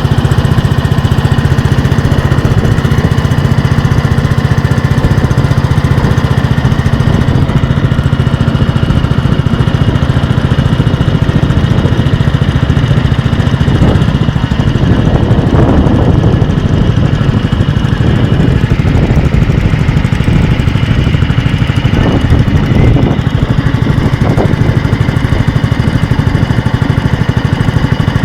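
A small engine running steadily and loudly close by, its note wavering a little now and then.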